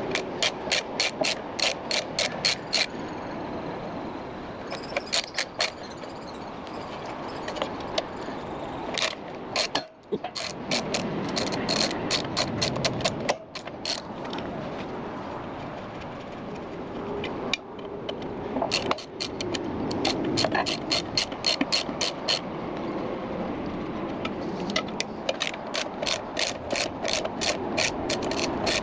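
Hand socket ratchet clicking in repeated runs of about four clicks a second, broken by short pauses, as the valve cover bolts of a Briggs & Stratton 18.5 hp engine are backed out.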